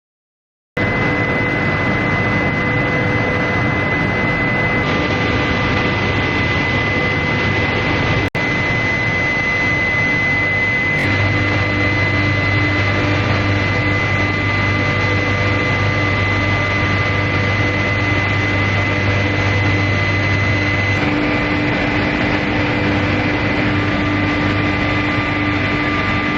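Loud, steady industrial machinery noise, plausibly induction heating equipment: a dense roar carrying a steady high-pitched whine and a low hum. It starts abruptly under a second in and changes character suddenly several times, with a momentary dropout, as the footage cuts.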